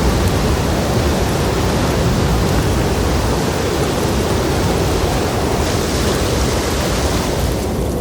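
Snowstorm wind buffeting the microphone: a loud, steady rush with uneven low rumbling.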